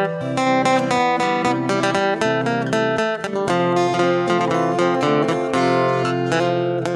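Background music: acoustic guitar, plucked and strummed in quick notes.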